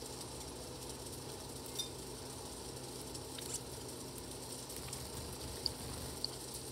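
A steady low hum, with two short, high bird chirps near the end and a couple of faint clicks.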